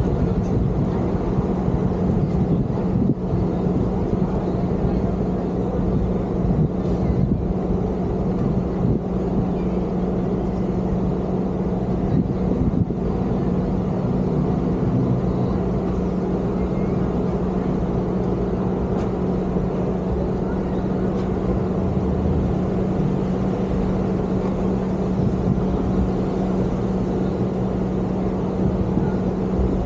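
Car driving at a steady pace: continuous road and engine rumble with a constant low hum running under it.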